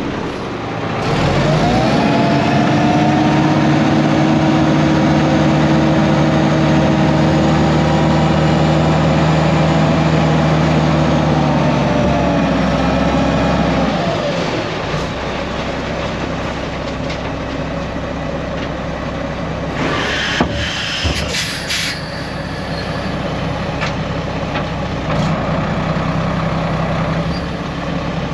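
Diesel dump truck loaded with rock: the engine revs up about a second in, pulls steadily at high revs for about ten seconds, then drops back to a lower, quieter run. Around twenty seconds in comes a brief hiss and clatter.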